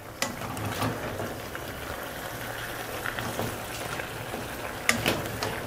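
Chicken, onions and peppers sizzling in a steel pot as a spoon stirs them, with a few clicks of the spoon against the pot, the loudest about five seconds in.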